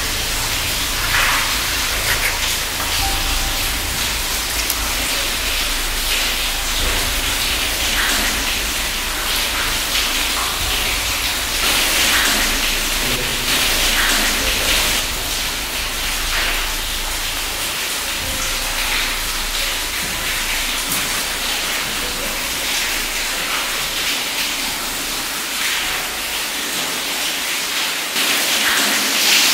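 Water in a wet mine passage: a steady, rain-like hiss of dripping and running water, with louder splashing surges every second or two and a low rumble underneath.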